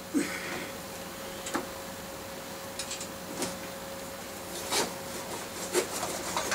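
Scattered light clicks and knocks of a spanner and metal bike parts as the 14 mm seat clamp bolt is loosened and the seat post is worked out of a mountain bike frame, with a faint steady hum underneath.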